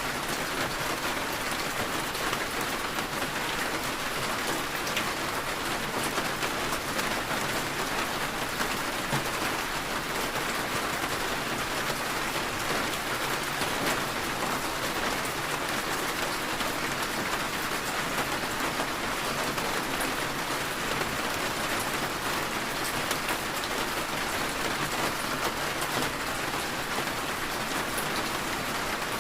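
Steady rain falling on a surface, an even hiss dotted with fine drop ticks.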